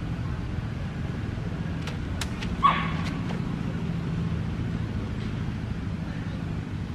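A dog barks once, short and sharp, about two and a half seconds in, with a few faint clicks around it, over a steady low background rumble.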